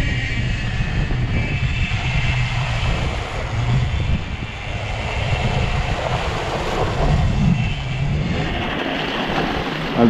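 Zero FX electric motorcycle ridden along a dirt track: a steady low rumble of wind on the microphone and tyre noise, with no engine sound. The rumble drops away near the end.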